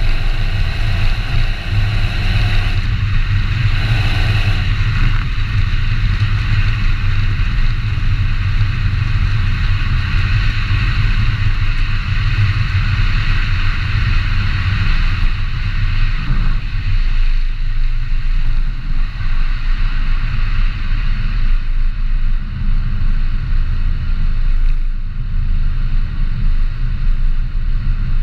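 Volkswagen Golf Mk7 GTI's 2.0-litre turbocharged four-cylinder running steadily while the car drives, under a loud, deep, constant rumble of road and wind noise.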